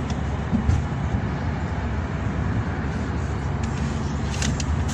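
Steady road and engine noise inside a moving car's cabin, with a low hum and a couple of faint knocks about half a second in.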